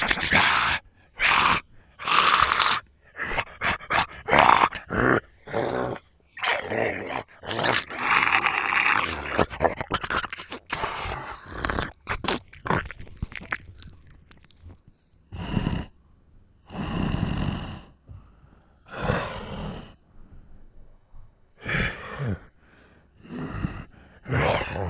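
Zombie sound effects: a person's voice growling, grunting and groaning. A fast string of short, rough bursts thins out about halfway into a few longer, separate groans with pauses between them.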